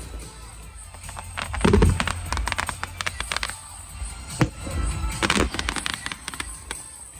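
Fireworks going off: scattered bangs and crackles, with the strongest bursts about a second and a half in and again around four and a half and five seconds in, over a low rumble.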